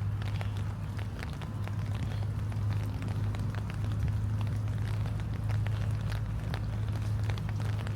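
Rain falling, with many scattered drops ticking irregularly, over a steady low hum.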